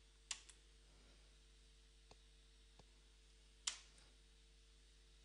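Near silence over a faint steady electrical hum, broken by a few short clicks. The clearest come about a third of a second in and about three and a half seconds in, each with a fainter click close behind it.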